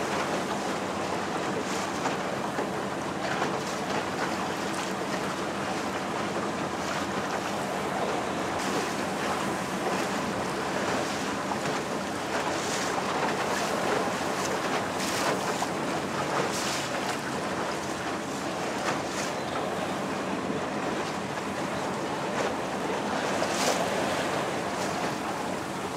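Small motor boat's engine running steadily under way, with water sloshing past the hull and wind buffeting the microphone; brief splashy hisses come and go.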